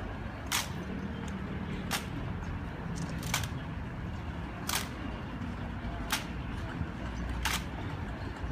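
Honour-guard rifle drill: crisp smacks of hands striking rifles as the guards move them between positions in unison, one about every second and a half, over a low steady background murmur.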